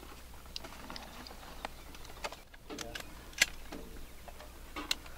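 Faint, scattered clicks and ticks at irregular moments over quiet background noise, the sharpest about three and a half seconds in and again near the end.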